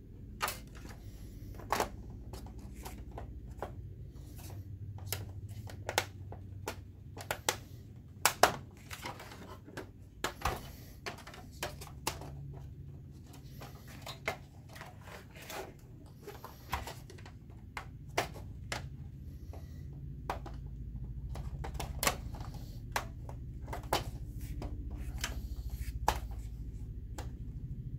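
Plastic projector housing being handled and fitted onto its metal chassis: irregular clicks, taps and knocks as the case parts are pressed and slid into place, over a low steady hum.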